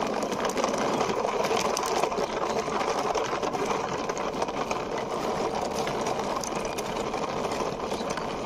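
Plastic toy car pushed by hand along a rough concrete wall top, its plastic wheels and body giving a steady, fast rattle as they roll.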